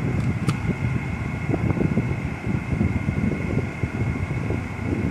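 Cabin noise of a 2011 Subaru Outback's 3.6-litre six-cylinder engine idling with the air-conditioning blower running on full, while the automatic's gear selector is moved through the gears with the transmission warm. A light click sounds about half a second in.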